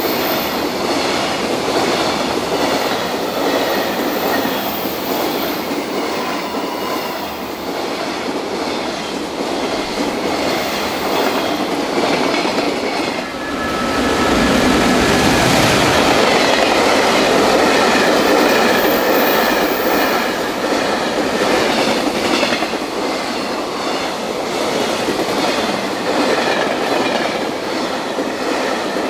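Loaded container freight trains rolling past close by: a steady rumble of wagon wheels on the rails with clickety-clack over the joints. About 13 seconds in the sound breaks off and a second train takes over, louder and deeper at first, with a faint high ring from the wheels.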